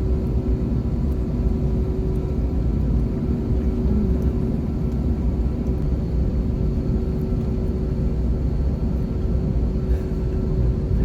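Airliner cabin noise: a steady low rumble with a constant hum.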